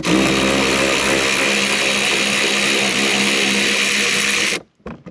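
Cordless electric ratchet (Milwaukee M12 Fuel 3/8-inch) running steadily as it backs out a bolt holding the plastic fender well liner. The motor stops suddenly about four and a half seconds in.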